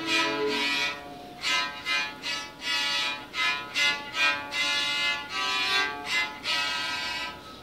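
Electric cello bowed: one held note, then a run of short, separate notes with a longer note near the end, a simple fingering exercise on one string.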